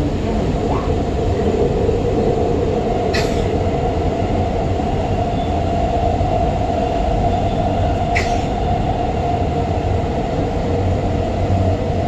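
Shinbundang Line subway train running between stations, heard from inside the car: a steady rumble with a sustained hum over it. Two brief high ticks come about five seconds apart.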